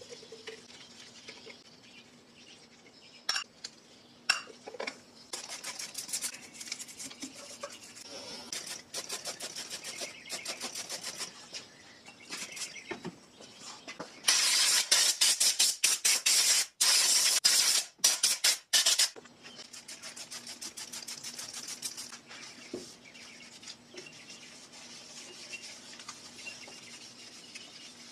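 A brush scrubbing the casing of a Pfaff 1245 sewing machine in quick strokes, in short spells at first and then hard and loud for about five seconds in the middle. There are a few sharp clicks early on, and a faint steady hum.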